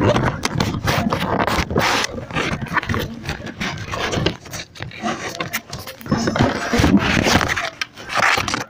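Irregular scraping and rubbing handling noise from a phone being moved about and fumbled, its microphone brushed and covered.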